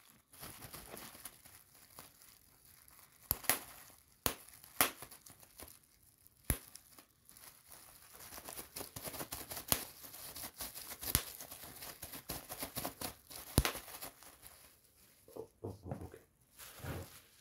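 Plastic bubble wrap being handled and crinkled, with about eight sharp pops at irregular intervals as single bubbles burst. Between the pops there is a continuous crackling rustle of the plastic.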